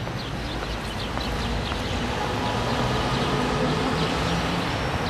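Outdoor street ambience: a steady hum of traffic with birds chirping.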